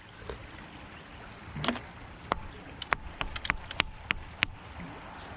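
Irregular sharp clicks and knocks from metal finds being handled and knocked about on a large neodymium fishing magnet, over a steady rush of running stream water.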